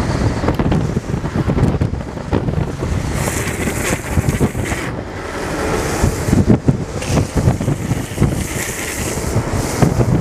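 Heavy wind buffeting the microphone at downhill speed, over the rumble of longboard wheels rolling on asphalt. Two stretches of higher hiss come in, about three seconds in and again near the end.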